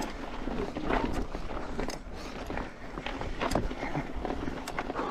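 Orbea Wild FS mountain bike rolling over a loose, rocky trail: tyres crunching on stones, with frequent knocks and rattles from the bike and a constant low wind rumble on the on-bike camera's microphone.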